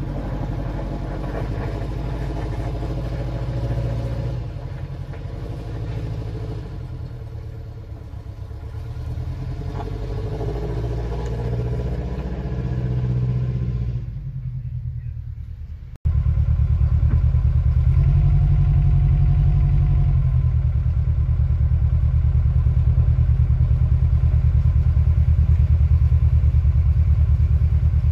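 Geo Tracker's 8-valve four-cylinder engine running as the truck drives off a trailer and away, fading out; after a sudden cut about halfway, the engine runs steadily and louder, heard from inside the cab while driving slowly.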